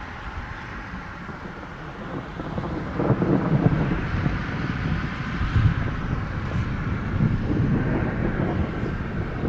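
Wind buffeting the microphone at the seashore under a thunderstorm: a low, gusty rumble that swells about three seconds in and stays up.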